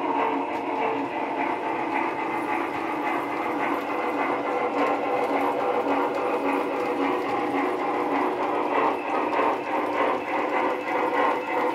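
Model trains running on a layout: a steady clatter of wheels on the track mixed with the whir of their motors and gearing.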